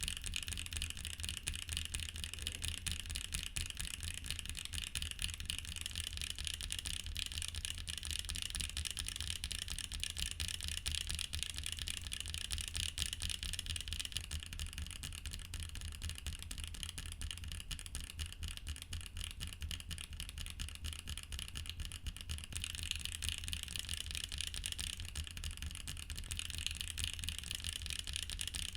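Continuous fast typing on a custom mechanical keyboard with Wingtree Yunie tactile switches: a dense run of keystroke clacks with a mid-tone clack character.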